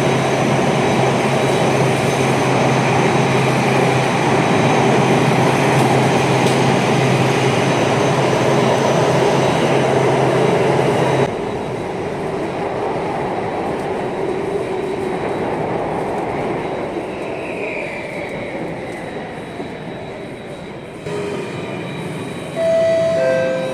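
Cabin noise of a Singapore MRT Circle Line train running on the rails, with a steady low hum. About halfway through it drops suddenly to a quieter rumble, and a falling whine follows as the train slows into the station. Near the end there is a two-note chime, the second note lower.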